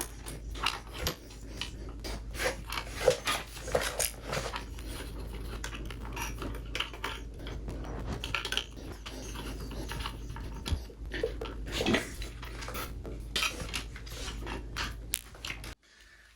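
Metal tools and parts clinking and tapping in irregular short clicks while the shift lever's bolt is fitted and tightened, over a steady low hum. The sound cuts out shortly before the end.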